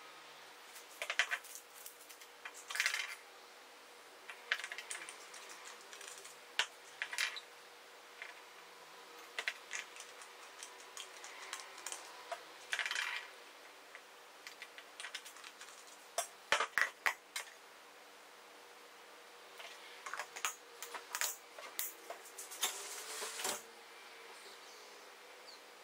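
Small plastic containers, a mixing jug and a plastic measuring scoop handled on a workbench by gloved hands: scattered taps, clicks and rustles in short clusters, with a quick run of sharper clicks a little past the middle, over a faint steady hum.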